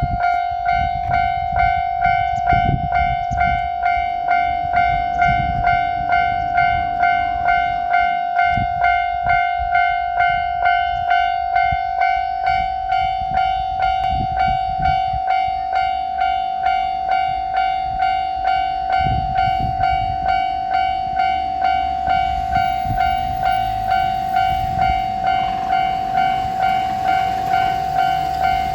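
Japanese railroad crossing warning bell ringing steadily, a repeated electronic 'kan-kan' tone at about two strikes a second. Low rumbling swells in now and then underneath.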